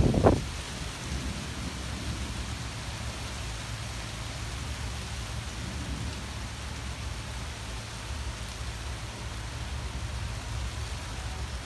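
Steady rain falling on tree leaves, with a low rumble of thunder underneath. A brief, loud low burst comes right at the start.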